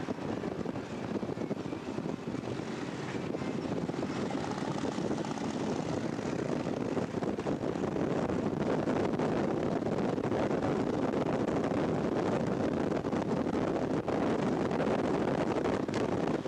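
Motorcycle engine running steadily at road speed, heard as a dense even drone that grows a little louder about seven seconds in.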